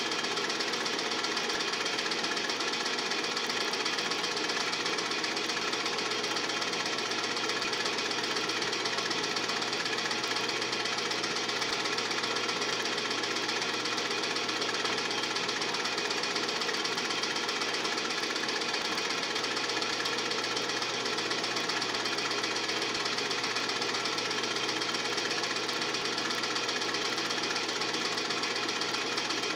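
Film projector running: a steady, fast mechanical clatter with a constant hum that does not change.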